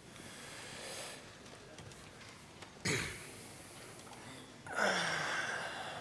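A man's breaths and sighs: a soft exhale, a sharp sniff about three seconds in, then a long breathy sigh with a little falling hum of voice near the end.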